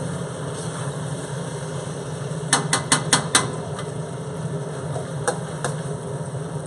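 Metal spatula clanking against a wok while stir-frying: a quick run of five clanks about two and a half seconds in, then two more a couple of seconds later, over a steady low hum.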